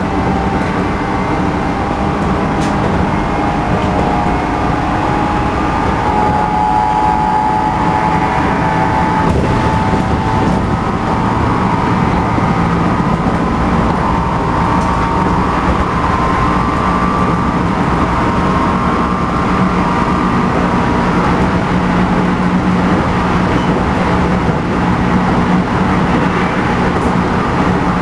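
Running sound inside a JR Central 211 series motor car: its MT61 traction motors hum and whine, with a strong low drone and higher tones that climb slowly as the train gathers speed. This car is known for abnormal noise, a heavy wavering hum from its motors, and the cause is unknown.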